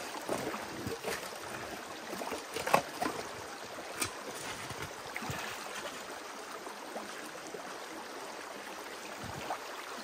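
Creek water running steadily, with scattered scrapes and knocks of a shovel digging into cobbly creek gravel during the first few seconds, fewer later on.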